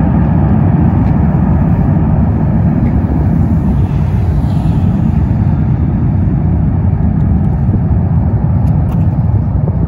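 Boeing 717's Rolls-Royce BR715 turbofan jet engines at high thrust for takeoff, a loud, steady low roar.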